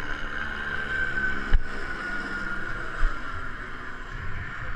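Wind buffeting an action camera's microphone at a cliff edge: a steady rushing hiss with low rumble and a couple of low thumps, the strongest about one and a half seconds in.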